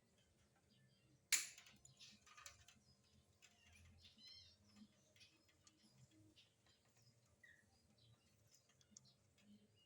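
Faint small clicks and taps of fibre cage bars being handled and fitted into a bird cage, with one sharp click about a second in. A few faint bird chirps are heard among them.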